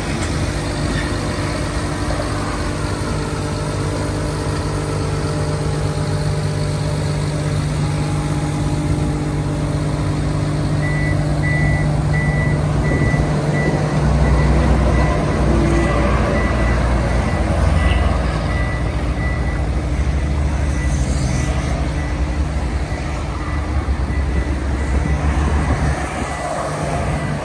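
Caterpillar 320D L hydraulic excavator's diesel engine running steadily. From about eleven seconds in, a high-pitched beeping alarm repeats over it. From about fourteen seconds in, the engine note turns deeper and heavier.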